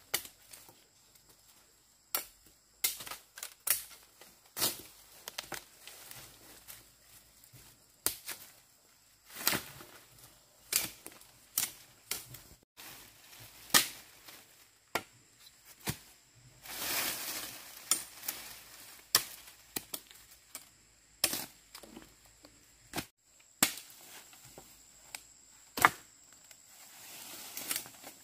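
Irregular sharp clicks and knocks, about one a second, of chopsticks, bowls and cups being handled at a meal. A short rush of noise comes about halfway through.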